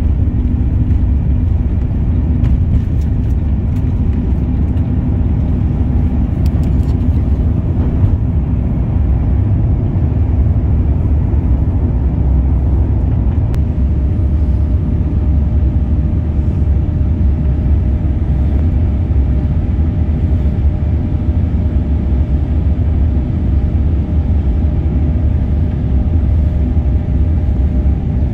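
Steady, loud rumble of an Airbus A350-900's Rolls-Royce Trent XWB engines and rushing air, heard inside the cabin during the takeoff and initial climb. A faint steady whine joins about halfway through.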